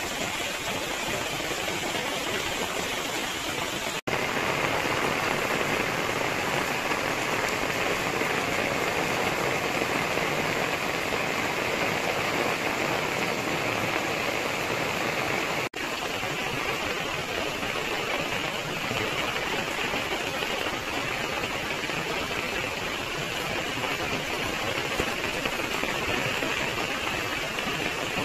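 Rain falling steadily on garden foliage and lawn: a dense, even hiss. It cuts out briefly twice, about four and sixteen seconds in, and is a little louder after the first break.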